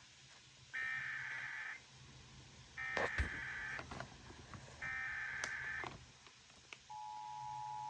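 Emergency Alert System tones over FM radio: three one-second bursts of the buzzing SAME data header, about a second apart, then the steady two-tone attention signal starts near the end. Together they announce an alert, here a severe thunderstorm warning.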